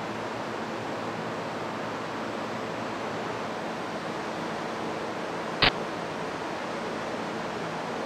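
Steady hiss of noise with a single sharp knock about five and a half seconds in.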